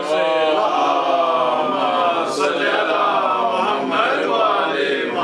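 A congregation of many voices chanting together in unison, a long group chant.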